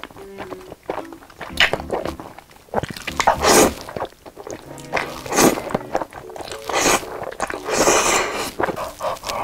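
A person slurping thick black-bean-sauce noodles into the mouth, picked up close by a lapel mic: several long, loud slurps a second or two apart, with wet chewing between them.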